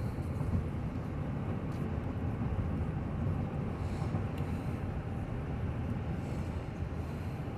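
Steady road and drivetrain rumble heard from inside the cabin of a 2020 Chevy Suburban, whose 5.3-litre V8 is cruising at an even speed.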